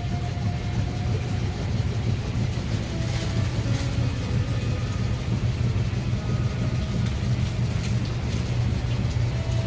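Steady low engine drone under a constant rushing noise, heard from aboard a moving vehicle.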